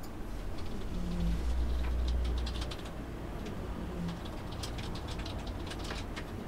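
Domestic cat snoring in deep sleep, recorded up close: a low snoring breath comes about every three seconds, with light clicking over it.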